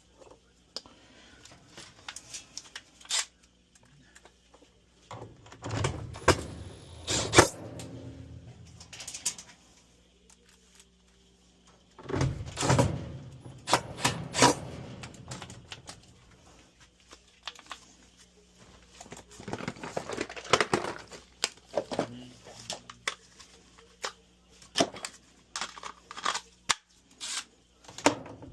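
Irregular clicks, knocks and clatter of metal parts and hand tools being handled while a replacement blower fan assembly is fitted into a Frigidaire dryer, in several busier bursts.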